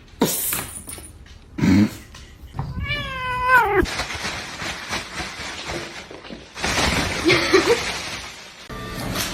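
A cat meowing: one clear drawn-out meow about three seconds in that falls in pitch at its end, and a shorter wavering call later.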